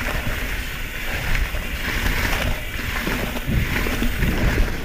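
Mountain bike rolling along leaf-littered dirt double track: steady tyre noise and bike rattle, with wind rumbling on the bike-mounted camera's microphone.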